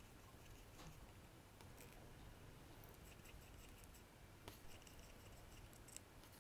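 Near silence broken by a few faint small clicks and light scrapes of a watchmaker's steel screwdriver and tweezers working on a Rolex calibre 3131 movement.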